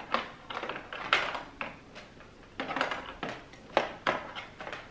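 Irregular plastic clicks and knocks from handling an HP Envy Photo 7155 printer while a cord is fitted into the port at its back.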